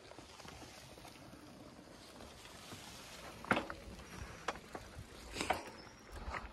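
Mountain bike rolling down a dirt trail: a steady rushing of tyres and air, with sharp clunks and rattles from the bike about three and a half seconds in, again around four and a half and five and a half seconds, and just before the end.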